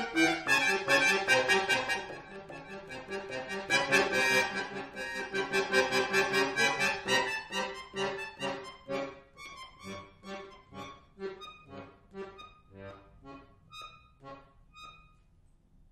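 Chromatic button accordion playing solo: loud, dense chords and fast runs, then from about eight seconds in short detached notes that thin out and fade away to quiet near the end.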